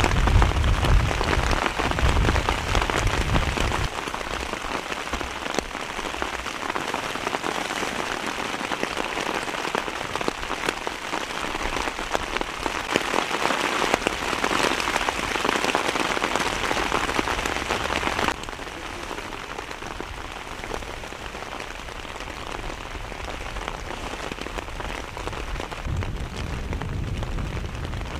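Heavy rain falling steadily, a dense hiss of many fine drop hits. A low rumble sits under it in the first few seconds and again near the end, and the rain suddenly becomes quieter about eighteen seconds in.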